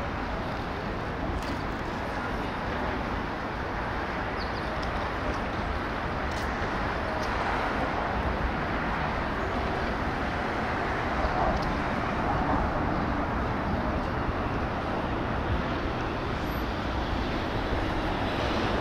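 Steady downtown street ambience: a constant hum of city traffic with no single event standing out, swelling a little in the second half.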